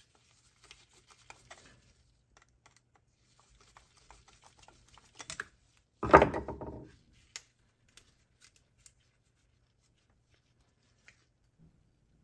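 Small clicks and scratches of a screwdriver backing a jet screw out of a small-engine carburetor, with one loud clunk about six seconds in and a few faint ticks after.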